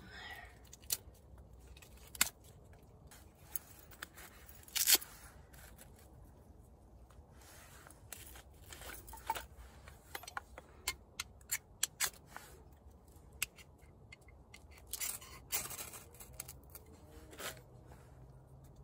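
Dry birch bark being torn and snapped by hand: irregular sharp crackles and snaps with short gaps between, louder clusters about five seconds in and again around fifteen seconds.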